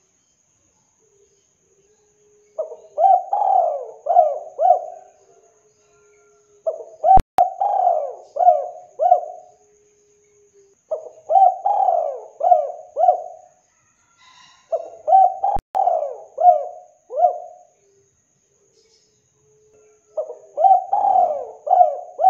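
Spotted dove cooing: five phrases, each a run of four or five coos, coming about every four to five seconds.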